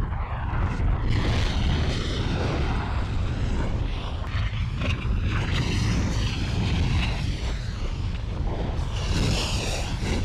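Volcano eruption sound effect: a steady, deep rumble with a rough, hissing layer on top, which grows brighter near the end.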